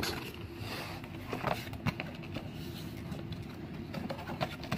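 Cardboard product box being handled and its end flap pulled open: faint, scattered taps and rustles of cardboard.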